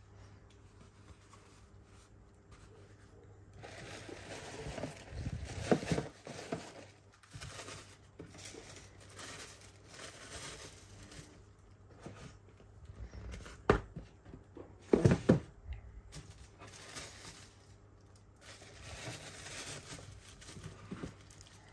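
Tissue paper rustling and crinkling as it is handled in a cardboard gift box, with a few sharp knocks partway through: one single knock, then a quick cluster just after it.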